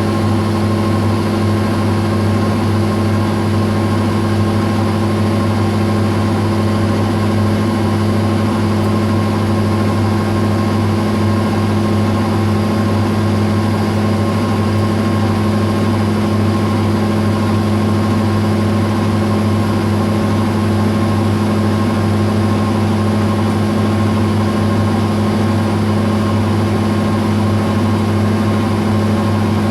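Metal lathe running at a steady speed: a constant machine hum with several fixed tones.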